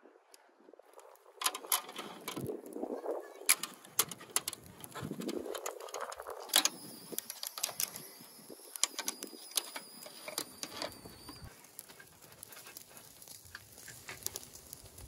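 Flat metal kebab skewers clinking and clacking as they are laid across a charcoal mangal grill, with many sharp clicks; after a hard clack about six and a half seconds in, a thin metallic ring hangs on for several seconds.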